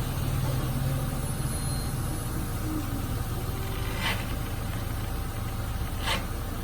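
A vehicle engine idling with a steady low drone. Two short, sharp noise bursts come about two seconds apart near the end.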